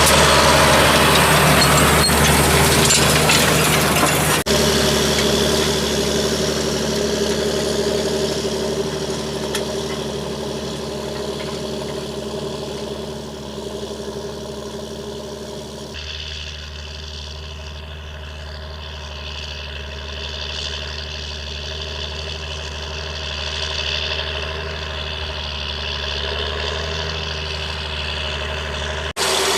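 John Deere 8320 tractor's six-cylinder diesel engine running steadily at an even pitch. It grows fainter toward the middle and then louder again, with a few abrupt changes in tone.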